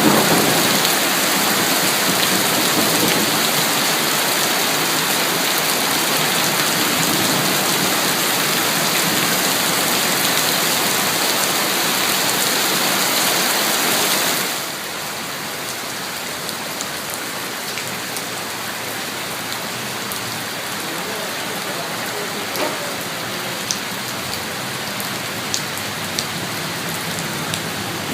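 Heavy rain falling steadily, with the last of a thunder rumble dying away at the start. About halfway through the rain suddenly becomes quieter, and a few sharp drip ticks stand out near the end.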